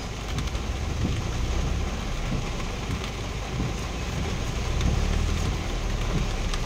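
Heavy rain on a vehicle's roof and windshield, heard from inside the cab, with a low engine rumble underneath.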